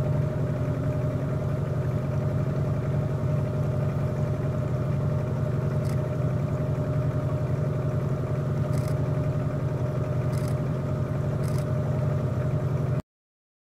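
An engine running steadily at idle: a low, even hum that cuts off suddenly near the end.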